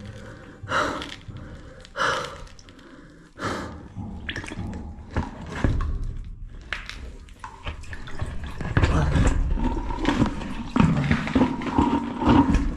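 Water sloshing and splashing in a flooded cave crawlway as a caver in a wetsuit shifts and squeezes forward through it, with his close breaths. The splashing is irregular and grows louder in the second half.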